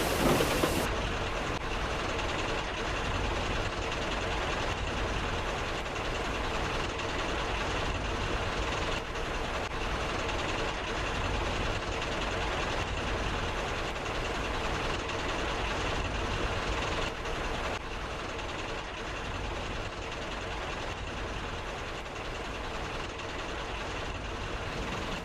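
Steady rumbling, rattling noise of a railway sound effect, a train or rail vehicle running, with no speech. It gets slightly quieter and duller about a second in.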